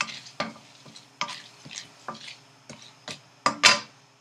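Chana dal, urad dal, mustard seeds and cumin seeds frying in hot oil in a steel pan and stirred with a wooden spatula, making about a dozen irregular sharp pops and clicks over a faint steady hum. The loudest pops come near the end, and it is the stage at which the mustard seeds begin to crackle.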